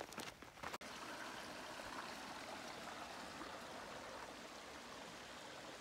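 Footsteps on a dirt trail for the first second, then, after a cut, the steady flow of a shallow creek trickling over rocks.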